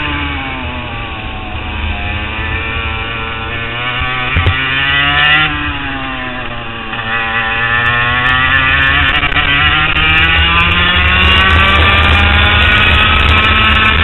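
HPV 100 kart engine heard onboard, its pitch falling off and climbing again twice as the kart slows for corners and accelerates out, then held high near the end.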